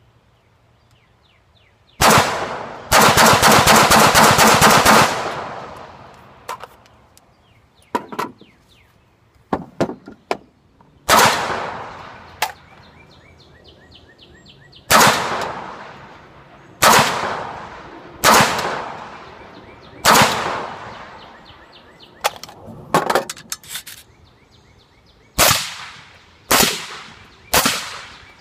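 Suppressed AR-15 in .223 firing: one shot, then a fast string of shots lasting about two seconds, then a slower run of about nine single shots one to three seconds apart, each followed by a long echoing decay.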